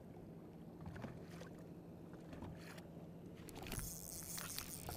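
Quiet ambience aboard a small fishing boat: faint water lapping at the hull under a steady low hum, with a few light clicks from handling a spinning reel.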